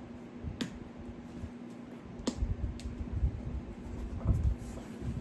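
Handling of a Hermès Garden Party leather tote as it is turned inside out: soft rubbing and low thumps of leather and canvas, with a few sharp clicks, under a steady faint hum.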